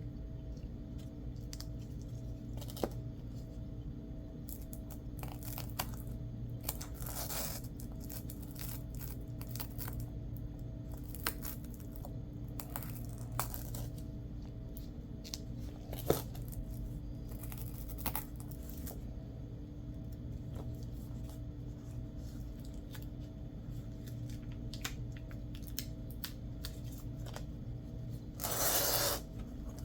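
Hand-work on small craft materials: scattered clicks and short scrapes, then a louder rasping tear lasting about a second near the end, over a steady low electrical hum.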